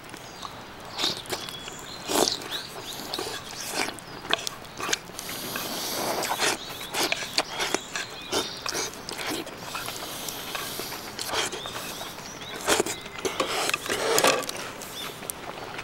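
A person eating offal stew with chopsticks from a wooden bowl: slurping broth with the lips at the bowl and chewing, with short clicks scattered throughout.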